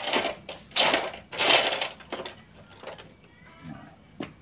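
Loose metal hardware clinking and rattling in three bursts over the first two seconds, then a single sharp click about four seconds in.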